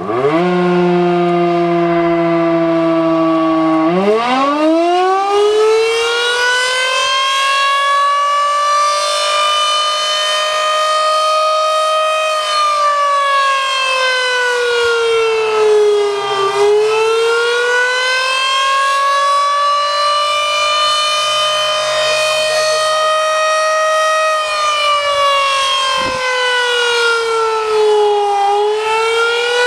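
Model 5 electromechanical civil-defense siren sounding the attack signal. It starts on a low steady tone, winds up to full pitch about four seconds in, then holds and slowly falls and rises again twice, the wavering cycle of the attack signal.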